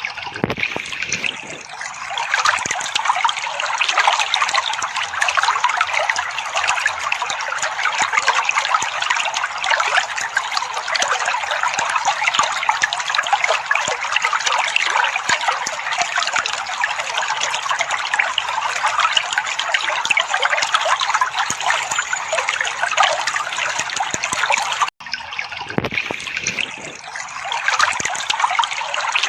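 Water trickling steadily, an even, bright splashing with a momentary break about 25 seconds in.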